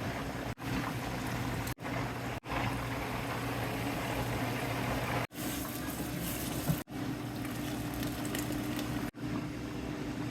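Stew base of spices and ginger garlic paste cooking in a pot, a steady bubbling sizzle with a low hum under it. The sound drops out abruptly several times.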